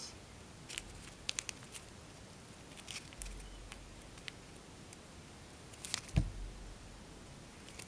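Faint, scattered crinkles and clicks of tissue-foil paper being handled and creased between the fingers, with a soft low bump about six seconds in.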